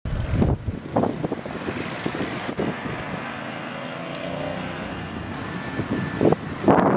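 Motor vehicle noise, with wind buffeting the microphone in gusts: a few low thumps near the start and again near the end.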